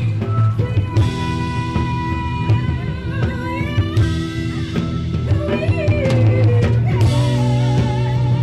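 Live amplified rock band playing: sung vocals with held and gliding notes over keyboard, guitar and a drum kit, with cymbal strokes every few seconds.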